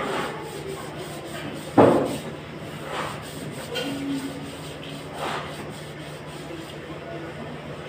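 Hand painting work: rubbing and scraping against the wall, with a sharp knock about two seconds in and a few lighter knocks and scrapes after, over a steady low hum.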